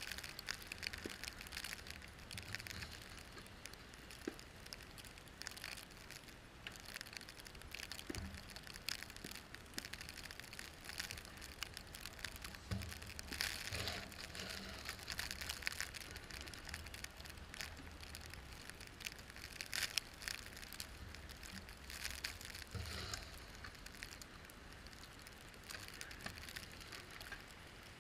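Continuous crackling and crunching of snow around a car driving through a snowstorm, over a low rumble, with a few soft thumps.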